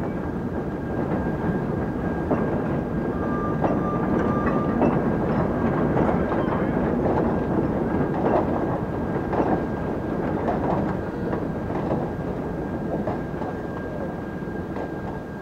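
A rake of colliery-waste wagons rolling under gravity: a steady rumble of wheels on rail, thick with clicks and knocks, swelling in the middle and easing toward the end. A thin steady high whine runs under it.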